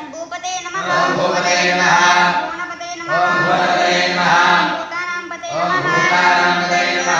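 Several voices chanting together in unison, in phrases of a couple of seconds each with short breaks between them.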